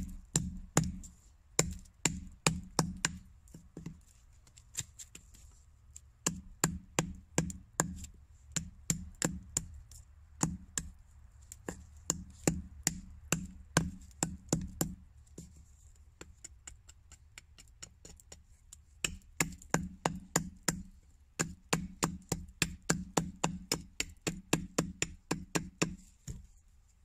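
Machete chopping a point onto the end of a wooden stick braced on a split log: quick sharp knocks of blade on wood, about three a second, in runs broken by short pauses.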